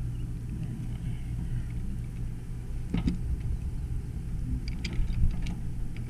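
Steady low engine-like hum, with a few sharp clicks and knocks of a wrench working the plastic drain plug of an Atwood RV water heater: one about halfway through and several close together near the end.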